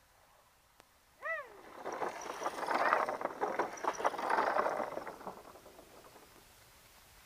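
Mountain bike rolling down a wooden plank ramp, the tyres clattering quickly over the boards for about three seconds, loudest in the middle and then fading away. Just before it, a short high-pitched squeal that rises and falls.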